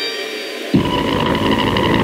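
Electronic lo-fi music: a held chord fades, then about three quarters of a second in a dense, noisy drone with a deep rumble cuts in abruptly, a few steady tones sounding above it.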